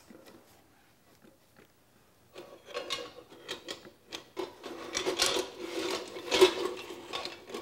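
Hand tools scraping and rubbing against the bamboo brim of a gat, with small knocks as a metal hand iron is handled and picked up from the work table. It starts about two seconds in and is irregular, busiest near the end.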